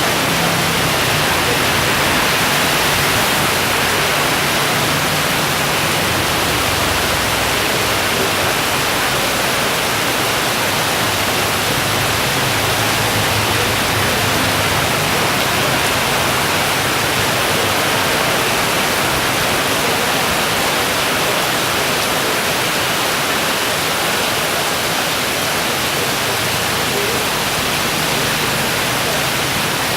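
Heavy downpour of rain falling steadily, a loud, dense, unbroken hiss.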